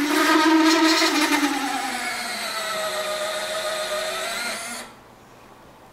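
Servo of the Foxtech PIVOT automatic retractable landing gear whining as it swings the legs up, its pitch dropping slightly, then stopping abruptly near the end as the gear finishes retracting.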